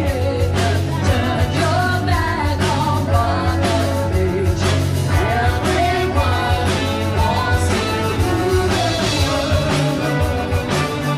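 Live band music with a singer over a steady beat and strong bass.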